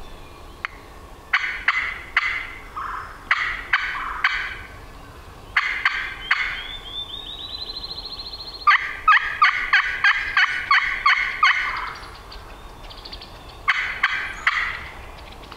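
Wild-turkey yelping in five short runs of raspy notes, the longest a quicker string of about ten notes in the middle, with a thin rising trill just before that string.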